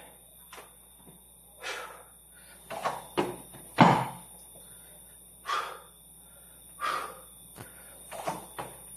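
A man exercising, breathing hard in short heavy exhales about every second and a half, with one sharp thump just before four seconds in as he drops to the floor into a burpee.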